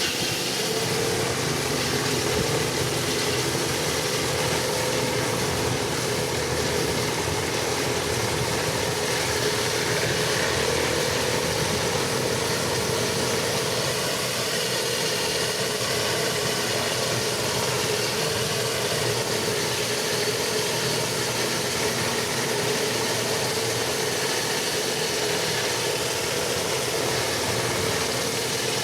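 Pressure washer running steadily: a constant engine drone with a hissing noise over it, cutting in suddenly at the start.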